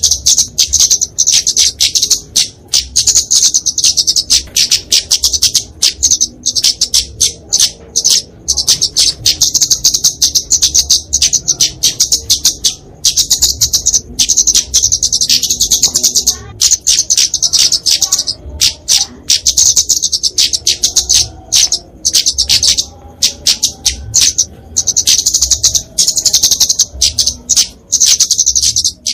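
Flowerpecker (kemade, genus Dicaeum) calling in a fast, unbroken stream of high, sharp chirps. These are the agitated 'fighting' calls used to lure small birds.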